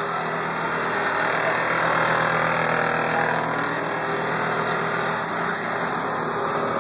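Lowrider car's engine running steadily at idle.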